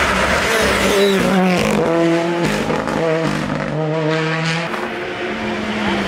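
Rally car engine at full effort on a wet tarmac stage, its note stepping up and down through several gear changes, over the hiss of tyres throwing spray.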